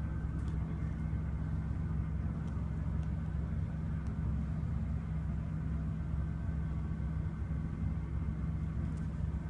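Steady low rumbling hum with a constant low drone, unchanging throughout.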